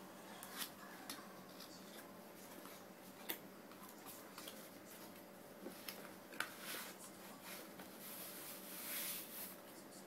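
Faint cardboard box being opened by hand: flaps and packaging scraping, with several sharp taps and clicks, then a longer rustle near the end as a cloth pouch is pulled out.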